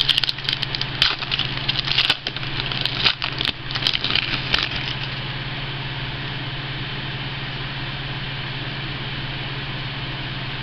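A Rookies & Stars football card pack's wrapper crinkling and tearing open in a run of sharp crackles over the first five seconds or so. After that only a steady low hum is left.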